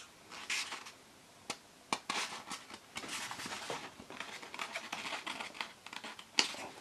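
Paper pages of a paperback colouring book being handled and turned: soft rustling with a few sharp ticks.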